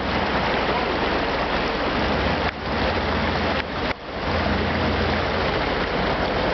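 Creek water rushing steadily over rocks, with the low rumble of a lifted pickup truck's engine underneath as it crawls over boulders in the stream; the engine rumble swells about four seconds in.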